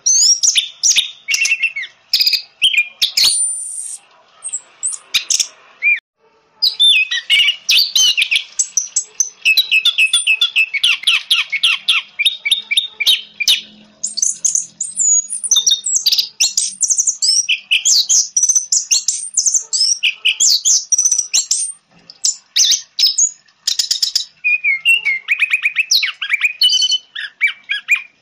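Orange-headed thrush singing a fast, varied song of high chirps, whistles and rapid trills, broken by a couple of short pauses.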